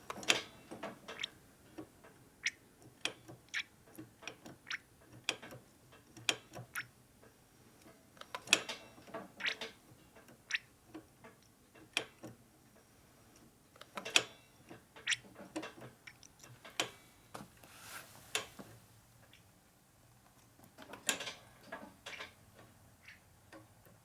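Irregular series of sharp clicks and light taps, roughly one or two a second with short lulls, from hand work on a motorcycle's hydraulic brake system while its air-locked lines are being bled.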